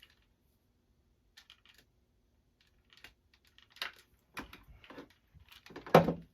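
Light clicks and rustling as a TIGI Bed Head hair waver's plates are clamped and worked down a section of hair. The clicks are sparse at first and grow busier in the second half, ending with a louder knock.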